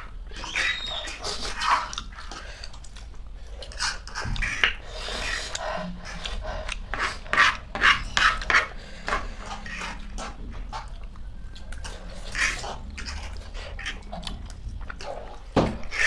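Close-up eating sounds: noodles slurped and chewed, with many short clicks of forks scraping and tapping on plastic plates.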